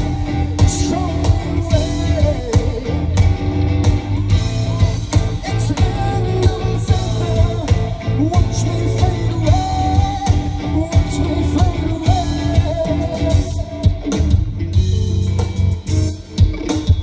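Rock band playing live through a stage PA: electric guitars, bass and drums with a singer, heard from the crowd. The music thins out briefly near the end.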